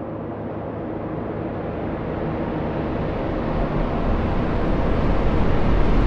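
Reversed cinematic sound effect: a dense rumbling noise swelling steadily louder and brighter, like a reversed impact building toward its hit.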